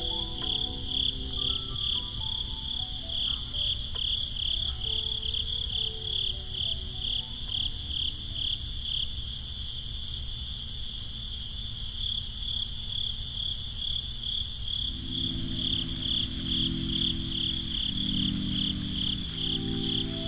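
Crickets chirping in a steady, even rhythm, a high pulsing trill, over soft lo-fi background music with gentle notes and, in the last few seconds, low chords.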